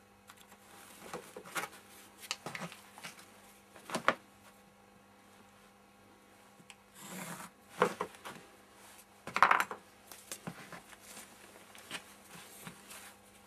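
Hands working with a pencil, a ruler and covering tissue on a building board: pencil scratching along the ruler's edge, papery rustling, and the ruler knocking down onto the board several times, loudest about four seconds in and twice more in the second half, over a faint steady hum.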